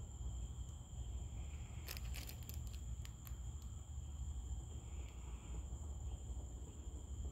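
Night insects trilling steadily in two unbroken high tones over a low rumble, with a quick run of sharp clicks about two to three and a half seconds in.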